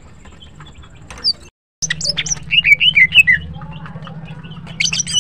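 Female green leafbird (cucak ijo) calling: a run of loud chirps and short down-slurred whistles, with a brief break to silence about one and a half seconds in, and more calls near the end. A low steady hum sits under the calls after the break.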